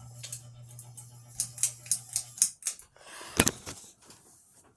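Ceiling fan motor humming low and steady under a run of irregular sharp clicks and taps; the hum cuts off about halfway through, followed by a short rustle with one louder click.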